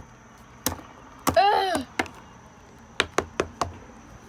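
Small plastic toy figures tapping and knocking on a wooden deck as they are hopped along by hand: a few single sharp taps, then a quick run of four near the end. A short high-pitched voice sound comes about a second and a half in.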